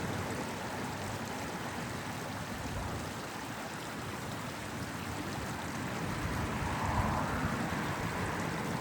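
Small stream flowing, a steady rush of water, with a low rumble of car traffic behind it; the water grows a little louder about seven seconds in.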